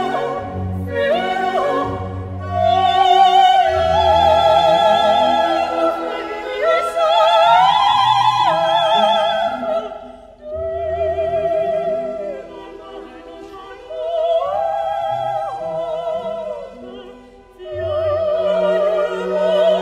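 Background music: a high operatic voice holds long notes with a wide vibrato over orchestral accompaniment, with brief pauses between phrases.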